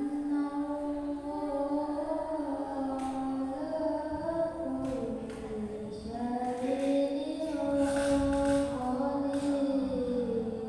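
A girl reciting the Qur'an in melodic qiro'at style. She draws out long notes that slide and ornament in pitch, and the voice swells louder in the second half.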